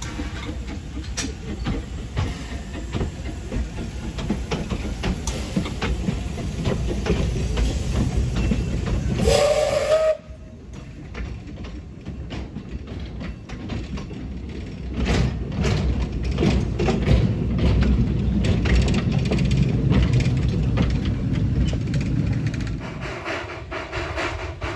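Narrow-gauge steam locomotives working in steam, a steady low rumble with hiss and clatter, and a steam whistle sounding one blast of about a second that cuts off suddenly about ten seconds in. A steam locomotive works on again from about fifteen seconds in.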